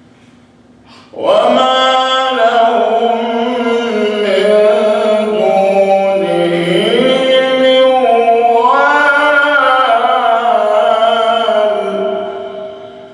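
A man's voice chanting a Quran verse in the melodic, drawn-out mujawwad style. It is one long melismatic phrase, starting about a second in and held for some eleven seconds, with the pitch wandering up and down before it fades near the end.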